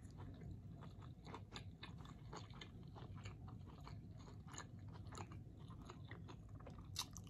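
A person chewing a mouthful of food close to the microphone, with many faint mouth clicks.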